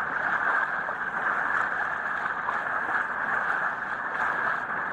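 Steady rushing noise of heavy rain and floodwater, heard through a police body camera's microphone.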